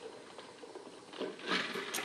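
Quiet room tone, then soft wet mouth sounds of a person eating and drinking, starting about a second in and ending with a sharp click.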